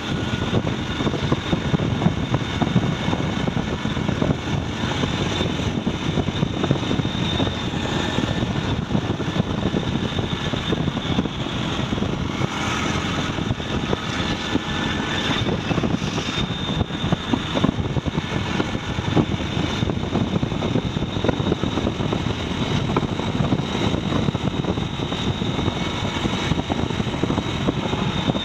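Truck engine and road noise, a steady drone while the truck is driving.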